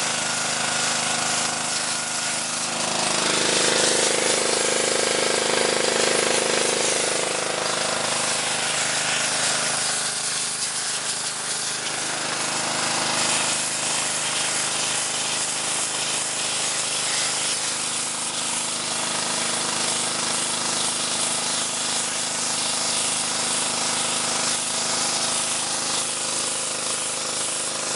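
Pressure washer running, its water jet blasting the scales off a large redfish: a steady hiss over the hum of the washer's pump, swelling for a few seconds near the start.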